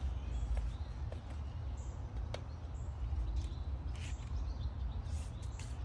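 Birds chirping in short calls over a steady low rumble, with a few sharp clicks.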